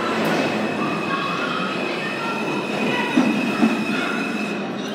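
R160A subway train pulling out of the station, its steel wheels squealing on the rails over a steady rumble. Two sharp clacks come a little past three seconds in as the cars run over the track.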